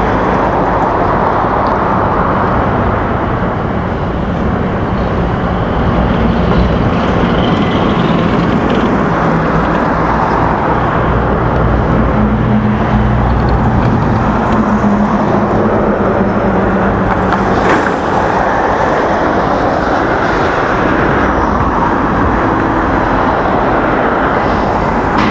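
Steady street noise of vehicles running, with a low engine hum that wavers in pitch midway.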